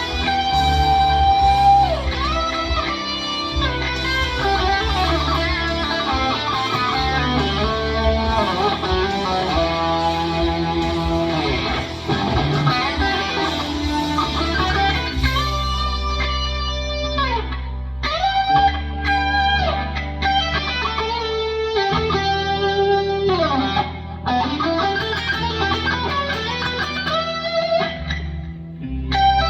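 Electric guitar through a Fractal FM9 amp modeler improvising a lead in E minor: single-note melodic lines with many string bends over sustained low notes.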